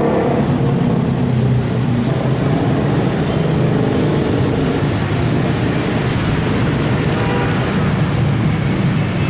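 Steady road-traffic noise, with vehicle engines running.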